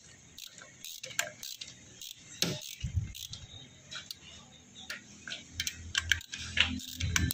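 Ratchet wrench clicking in short, irregular runs with light metal ticks as the spring bolts of a five-spring motorcycle slipper clutch are tightened down.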